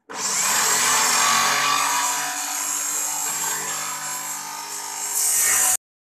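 A power tool cutting wood: a steady motor tone under a loud, dense rasping hiss, which swells again about five seconds in and cuts off abruptly near the end.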